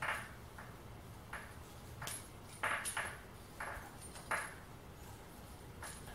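Soft, short rustling scrapes of fingers and fly-tying thread being handled at the hook, about nine of them at irregular intervals.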